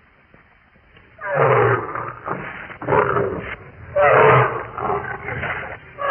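Reconstructed vocalizations of a seven-year-old juvenile Tyrannosaurus rex: after about a second of quiet, a series of loud, rough animal calls with short gaps between them.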